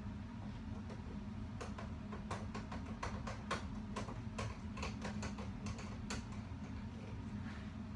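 Irregular clicking of keys typed on a computer keyboard, starting about a second and a half in and stopping around six seconds, over a steady low hum.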